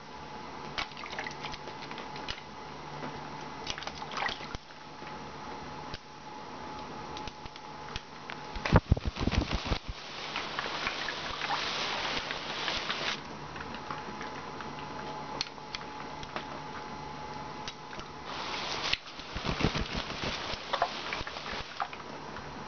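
Congo African grey parrot bathing in a stainless steel water dish, splashing the water in irregular bursts, the loudest about nine seconds in, with more around twelve and twenty seconds.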